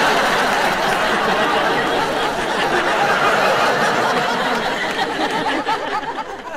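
A large audience laughing together, a dense wash of laughter that slowly fades toward the end.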